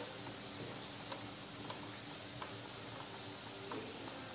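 Faint steady hiss with scattered light ticks from a hot electric contact grill, a folded tortilla tacos resting on its ridged plate.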